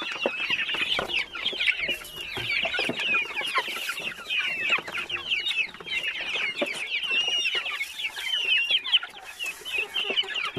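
A crowded flock of young chickens cheeping and clucking without pause, with many short, high calls overlapping.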